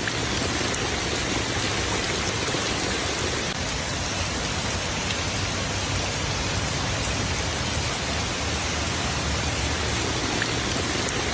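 Rain pouring down steadily, a dense even hiss that does not let up.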